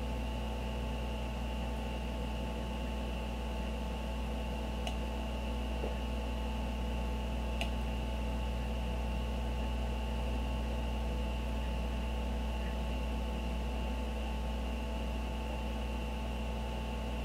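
Steady background hum made of several held tones over a faint hiss, with a few faint clicks near the middle.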